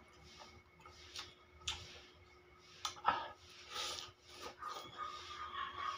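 Close-up eating sounds: irregular wet mouth clicks, chewing and slurps as a lettuce-wrapped bundle of noodles and prawn is eaten, getting busier about halfway through.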